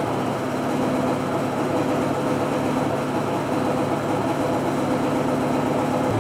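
Steady mechanical hum with a constant low drone from a Denison hydraulic tensile testing machine running, slowly pulling an 8 mm steel chain under a load of about 40 kN.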